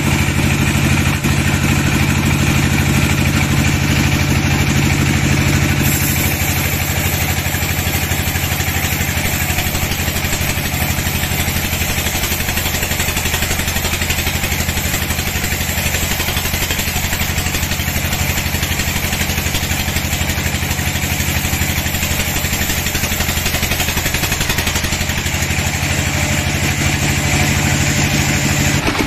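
Sawmill band saw running with a steady machine drone while it cuts a dry teak slab, dipping slightly in level about six seconds in.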